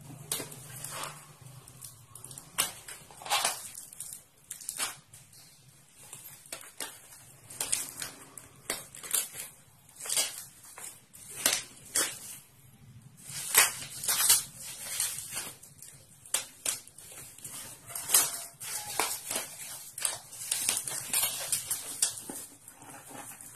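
Plastic packaging and bubble wrap crinkling and crackling in irregular bursts as a taped parcel is opened and unwrapped by hand.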